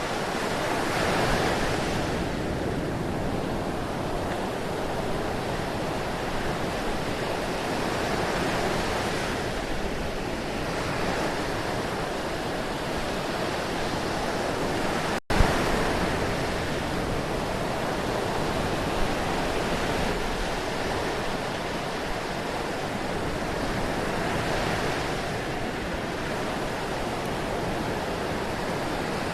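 Ocean surf washing in continuously, a steady rush of water that swells softly every several seconds as waves break. About halfway through the sound cuts out for an instant with a click.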